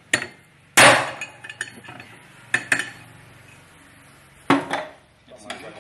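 Hammer driving a steel chisel through the hub of a VW Gol rear brake drum to knock out the old tapered bearing races: a series of irregular sharp metallic clanks. The loudest comes about a second in and rings on after it.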